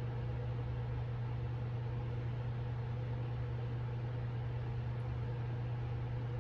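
Steady low machine hum with a faint hiss over it, unchanging throughout, like a fan or appliance motor running.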